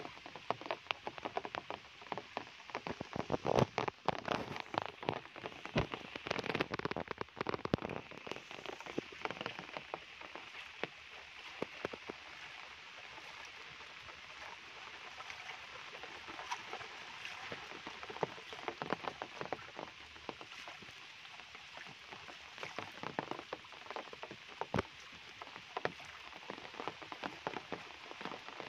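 Steady rain falling on foliage and a waterlogged path, an even hiss with many sharp close drop hits. The hits are densest and loudest in the first eight seconds, then thin out.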